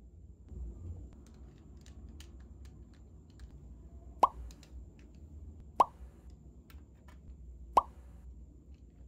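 Three water-drop-like plops, each a short rising bloop, a second or two apart in the second half, over faint clicks of plastic projector discs being handled.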